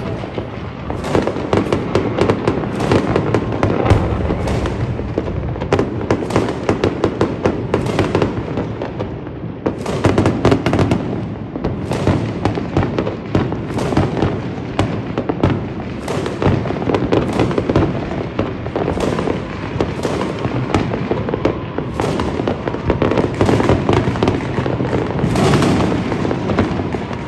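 Fireworks and firecrackers going off continuously: a dense, unbroken barrage of cracks, pops and bangs.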